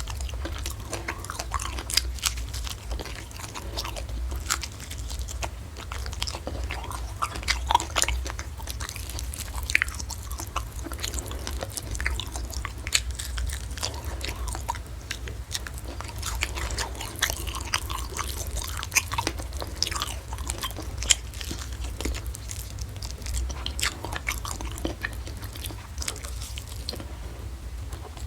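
Close-miked mukbang eating: steady wet chewing with frequent crunchy bites and mouth clicks. A steady low hum runs underneath.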